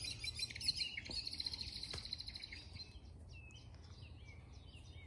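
Small songbirds singing: a fast trill of quickly repeated high notes through the first three seconds, then scattered short whistled chirps, over a low steady background rumble.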